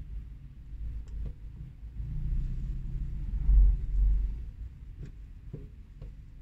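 Low engine and road rumble of slow traffic heard from inside a car, swelling about halfway through as a minibus taxi comes up alongside. A few faint clicks sound here and there.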